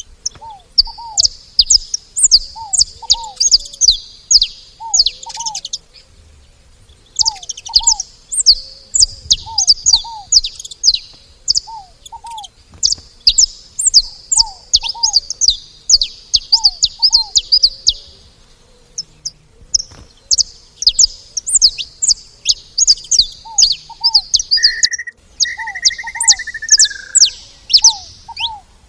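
Saffron finches chirping in dense bouts of fast, high notes, breaking off briefly twice. Under them a lower bird call repeats in pairs of short falling notes, and a short whistle sounds near the end.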